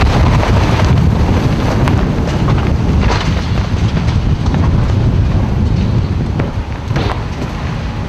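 Downburst winds hammering the microphone with a loud, heavy low rumble and rushing noise. A few sharp cracks and clatters cut through it, one about three seconds in and two near the end, as debris from the shredded roof is thrown about.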